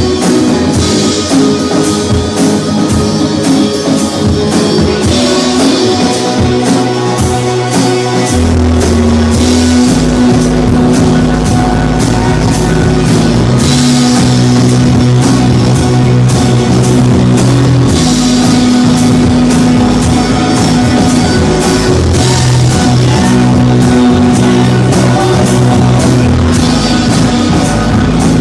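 Indie pop band playing live: drum kit, electric guitars and bass with steady drum and cymbal hits. Low bass notes step between pitches every second or two and get heavier about eight seconds in.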